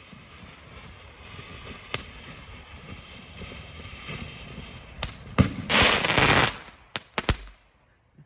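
Ground firework fountain (Pure Fantasy Fountain) spraying with a hiss that builds, broken by a few sharp cracks from its effects. About six seconds in comes a loud, dense burst lasting under a second, then three quick sharp bangs, and the sound drops away abruptly near the end.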